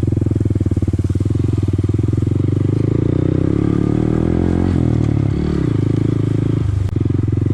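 Honda Grom's single-cylinder four-stroke engine running under way at low speed. Its pitch shifts around the middle, and the sound briefly drops out near the end.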